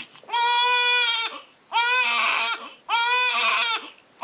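Newborn baby crying hard after a heel-prick blood test: three long wails of about a second each, held at a steady high pitch, with a quick breath between them.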